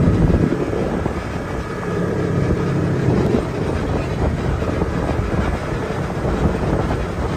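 Side-by-side UTV engine running steadily as it drives along a dirt trail, with wind noise on the microphone.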